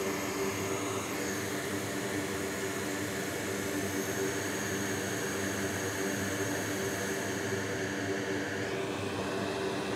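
Steady fan noise with a low hum underneath. The upper hiss shifts slightly about nine seconds in.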